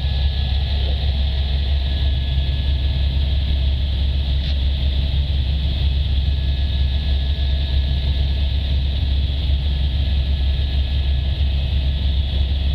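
Helicopter cabin noise in steady flight: an even, unbroken drone of rotor and engine, heaviest in the deep bass, with a thin steady whine above it.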